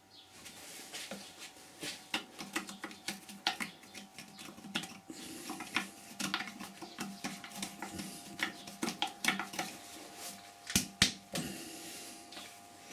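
Wood lathe running with a steady whine while a turning tool cuts intermittently into a spinning blank of green wood, giving irregular clicks and scrapes.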